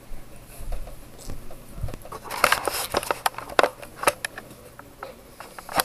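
Handling of paper IKEA catalogs: irregular rustling and crackling with sharp knocks, densest about halfway through, and a single loud knock near the end.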